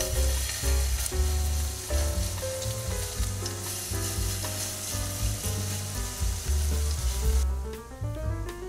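Chicken-and-cabbage patties frying in vegetable oil in a nonstick pan, a steady sizzle, as more mixture is spooned into the pan with a wooden spoon. The sizzle breaks off briefly near the end.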